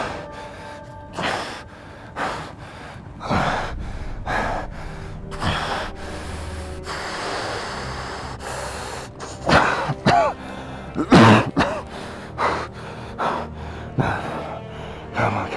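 A man gasping and panting hard for breath, short sharp gasps about once a second, with a longer drawn-out breath in the middle and a couple of strained, voiced groans soon after. A low musical score runs underneath.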